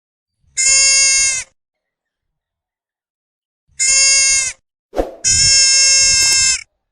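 Deer bleating: three nasal calls held at a steady pitch, the first two under a second each and the third, longer one about a second and a half. A sharp click comes just before the third call.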